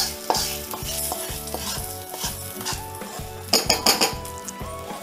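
Hot oil tempering of mustard seeds, dal, red chilli and curry leaves sizzling as it is tipped from a small iron tempering pan into a steel pot of cooked banana-stem kootu, with a wooden spatula scraping and knocking against the metal. A cluster of sharp knocks about three and a half seconds in as the pan is scraped empty.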